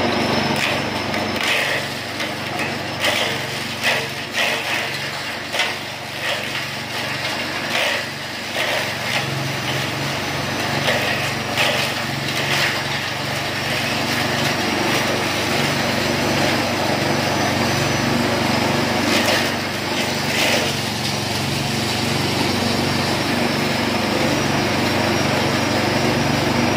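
Forage chopper running steadily with a constant motor hum. Short cracking bursts sound as elephant-grass stalks are fed in and cut, many in the first half and again about two-thirds through.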